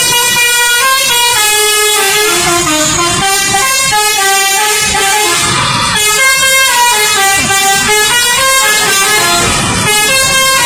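Telolet horn on a Garuda Mas bus, a multi-tone musical air horn, playing a tune, its notes stepping up and down with a few slides between them.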